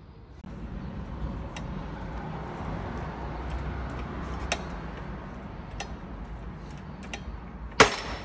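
Hydraulic bottle-jack shop press being pumped by hand on a wheel hub, with a few faint clicks, then one sharp, loud pop near the end as the wheel bearing gives way under the press.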